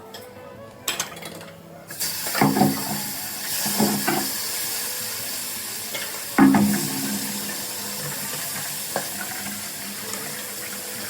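Kitchen tap turned on about two seconds in and left running into a sink, with pots and dishes clattering against it a few times. Light clinks of utensils come before the water starts.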